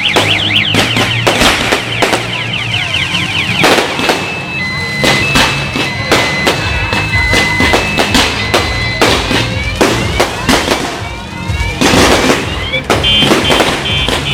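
Aerial fireworks exploding in quick, irregular bangs. Underneath, an electronic alarm warbles at first and later beeps in steady tones, and a few rising whistles come a little past the middle.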